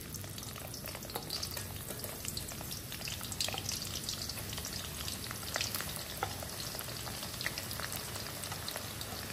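Sliced red onions sizzling in hot cooking oil in an iron karahi as they are dropped in a handful at a time: a steady frying hiss with scattered small pops and crackles.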